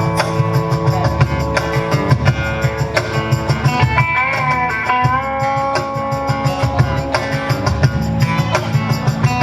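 Live rock band playing loudly: electric guitar holding and bending notes over a steady drum beat and bass.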